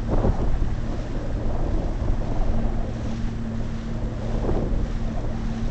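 Small motorboat's engine running steadily with a low hum at slow cruising speed, with wind buffeting the phone's microphone.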